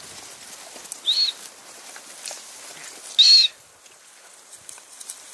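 A bird calling: a short, high, arched note, given twice about two seconds apart.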